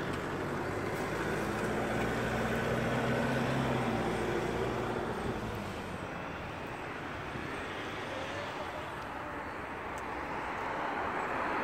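Road traffic on a busy road: a vehicle's engine passes in the first few seconds, then a steady, slightly quieter traffic hum.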